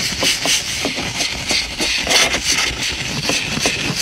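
Compressed air hissing steadily from an air-compressor blow gun as it blows dirt and hair out of the gap between a car seat and the centre console, with a fast run of clicks and knocks over it.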